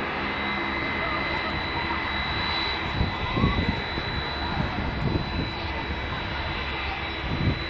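Qantas Airbus A330's jet engines at taxi power as the airliner rolls past: a steady hum with a high whine held on two pitches over a low rumble. A few short low thumps come through about three, five and seven and a half seconds in.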